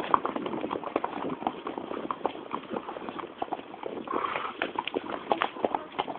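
Hoofbeats of horses galloping on a dirt track, heard from the saddle: a quick, uneven stream of thuds and clicks.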